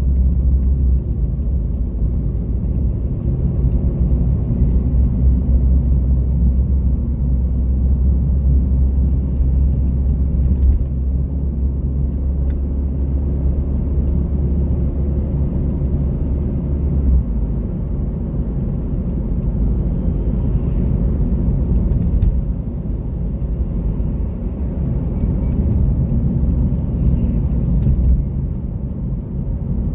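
Car driving along a road, a steady low rumble of engine and tyres heard from inside the car. The deepest part of the rumble eases a little over halfway through.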